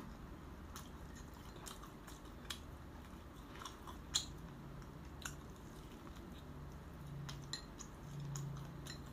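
Faint close-up chewing and biting on braised pork ribs with crunchy cartilage, with sharp clicks scattered every second or so and a low hum late on.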